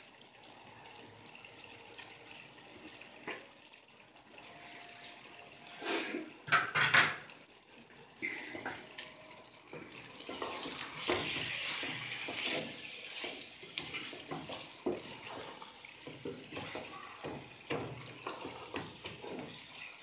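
Wooden spoon stirring and scraping in an aluminium cooking pot, with a few loud knocks against the pot about six seconds in. Through the second half the curry sizzles as it is stirred and fried.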